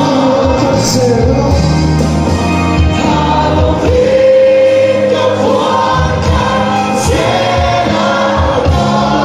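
Live gospel worship music: a congregation singing along with a worship band's amplified singers, guitars and bass, the voices holding long notes over a steady bass line.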